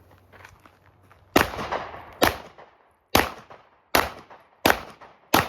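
Six 9mm pistol shots fired in quick succession, roughly one every 0.7 to 0.9 seconds, the first about a second and a half in; each shot has a short echoing tail.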